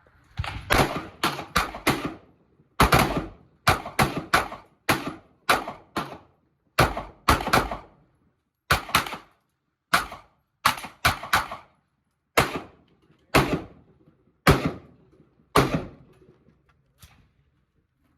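Handgun shots at a shooting range, about two dozen in all, fired in quick strings of two to four shots a fraction of a second apart, then slowing to single shots about a second apart near the end.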